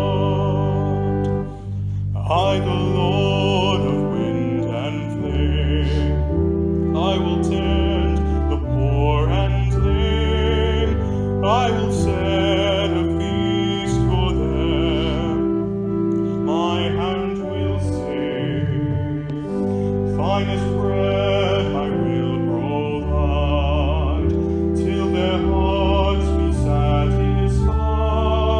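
Worship music: a singer holding notes with a strong vibrato over sustained keyboard accompaniment.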